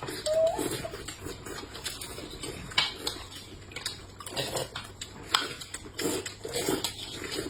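Scattered clicks and clinks of tableware at a meal, the sharpest about three seconds in and again about five and a half seconds in.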